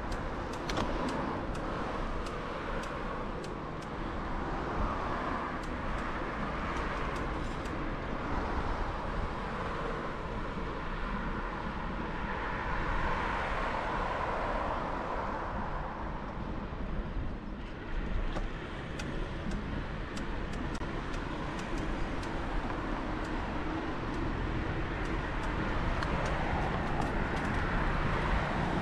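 Steady road traffic noise with cars going by, heard from a moving bicycle, with light clicks now and then.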